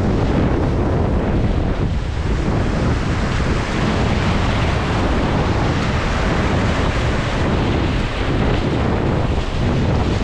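Rushing whitewater of a river rapid, a loud steady roar, with wind buffeting the microphone.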